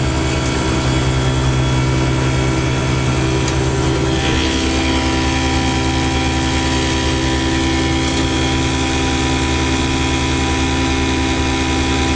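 1974 Johnson 6 hp two-stroke outboard motor running steadily under way. Its tone shifts slightly about four seconds in.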